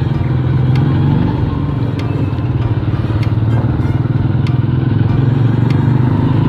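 Motorcycle engine running steadily at an even, low pitch while riding, with faint sharp ticks about once a second.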